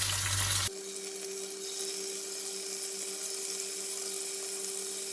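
Chicken pieces shallow-frying in hot olive oil, a steady sizzle with a steady low hum under it. A louder burst of sizzling cuts off abruptly less than a second in.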